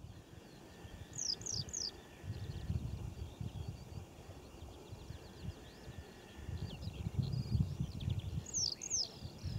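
Wild birds singing and chirping, with a quick run of three sharp descending notes about a second in and two more near the end, over a low gusty rumble of wind on the microphone.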